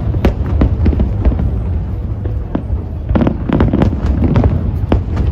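Fireworks display going off: an irregular run of sharp bangs and pops over a continuous low rumble, with a dense cluster of bursts about three seconds in.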